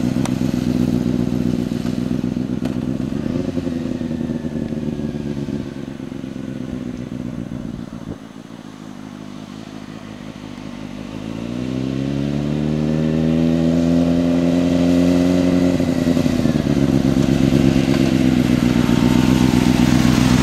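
Sport motorcycle engine running steadily, then dropping to a low idle about eight seconds in. Around eleven seconds it revs up in a rising pitch as the bike pulls away, and it holds a steady, higher note to the end.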